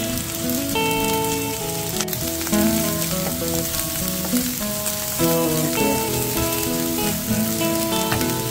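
Large dried anchovies sizzling as they stir-fry in hot oil in a pan, with background music playing over it.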